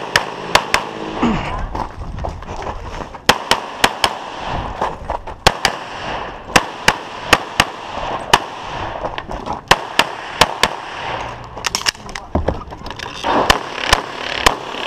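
Semi-automatic pistol fired rapidly in pairs and short strings, about thirty shots in all with brief pauses between strings, as a practical shooting competitor engages targets through a timed course of fire.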